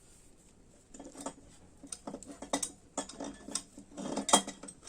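Metal engine parts and hand tools clinking and tapping as they are handled and fitted: a quick irregular series of sharp clicks starting about a second in, with the loudest knock near the end.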